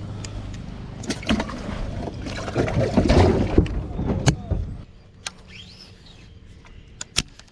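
Knocks, thumps and handling noises aboard a bass boat, loudest from about two and a half to four and a half seconds in, over a low steady hum that stops about five seconds in. Then a few isolated clicks.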